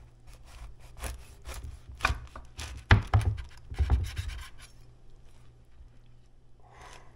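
Chef's knife sawing through a crusty baguette sandwich on a wooden cutting board: a run of crunching, scraping strokes through the crust, with two heavier knocks about three and four seconds in, then it goes quiet.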